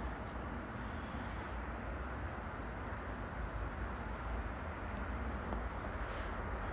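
Steady outdoor background noise: a low rumble with a soft hiss over it, unchanging throughout.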